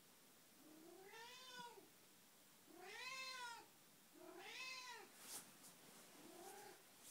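Elderly domestic cat meowing over and over: three long meows that rise and fall in pitch, then a fainter, shorter one near the end, with a sharp click just after the third. It is an early-morning wake-up call from a cat the owner describes as having Alzheimer's.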